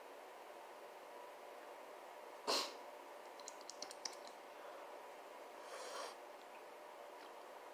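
A short sharp burst of breath through the nose, like a snort, about two and a half seconds in, then a few faint clicks and a softer breathy puff near six seconds, over quiet room tone.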